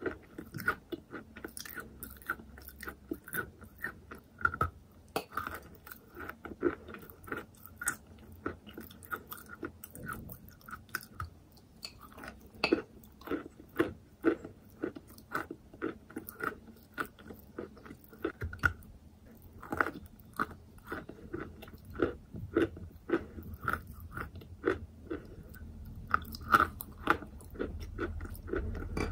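Close-miked biting and chewing of wet chalk coated in a soft paste: irregular soft crunches and wet mouth clicks, a few every second.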